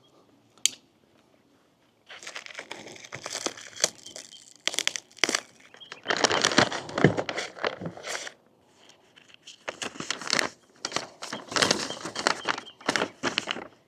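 Plastic shrink wrap being torn and crumpled off a packed box, a dense crinkling and crackling in irregular bursts that starts about two seconds in, with a brief lull a little past the middle.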